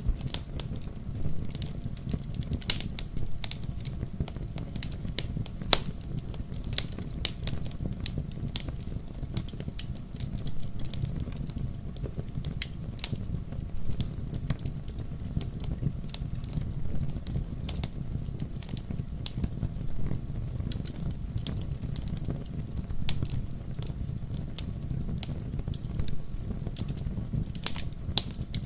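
Wood bonfire burning, with irregular sharp crackles and pops from the burning wood over a steady low rumble of the flames.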